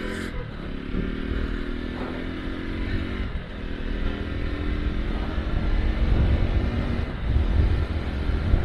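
Bajaj Pulsar NS200's single-cylinder engine running as the motorcycle is ridden, fitted with a short aftermarket exhaust. The engine note breaks and shifts about three seconds in. Low rumble and wind on the microphone grow louder in the second half as the bike picks up speed.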